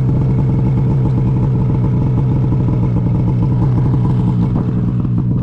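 Snowmobile engine idling steadily, heard from the rider's seat.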